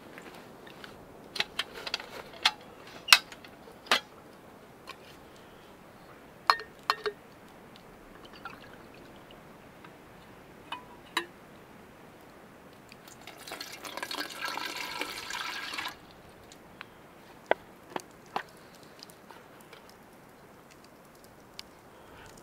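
Liquid poured into a container for about two and a half seconds, a little past halfway through, amid scattered sharp clicks and knocks.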